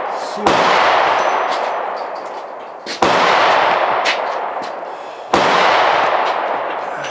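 Three rifle shots from a Springfield M1A, about two and a half seconds apart, the first about half a second in. Each report dies away slowly over about two seconds.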